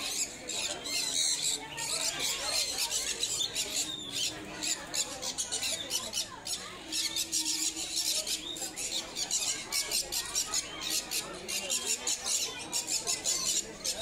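Many caged birds chattering together: short, high chirps and squeaks overlapping without a break.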